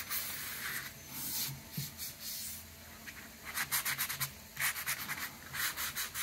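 Hand sanding with a foam-backed 320-grit sanding pad over a putty repair on a painted cabinet door's edge, shaping the profile smooth for paint. Light rubbing at first, then quick runs of short scratchy strokes in the second half.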